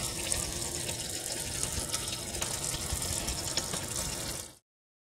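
Kitchen faucet running in a steady stream into a stainless steel sink, splashing over a russet potato held and scrubbed beneath it. The sound cuts off abruptly near the end.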